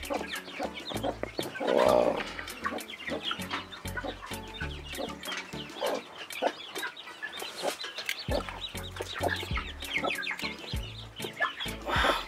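Newly hatched chicks peeping rapidly: many short, high, falling peeps. A broody hen answers with a few low clucks, the loudest about two seconds in.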